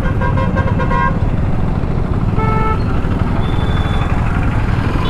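Motorcycle engine running with road and wind rumble while riding in traffic. Vehicle horns honk in the first second and again briefly about two and a half seconds in.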